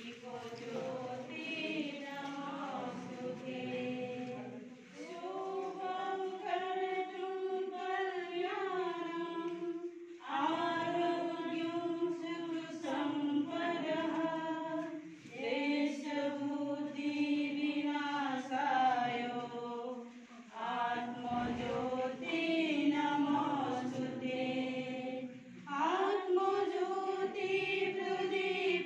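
A group of voices singing a devotional hymn in unison, in held phrases of about five seconds each with short breaths between them.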